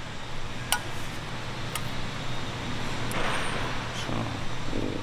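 Two light metallic clicks as small valve parts are set into a bare engine cylinder head, over a steady low workshop hum. A short rustle follows about three seconds in.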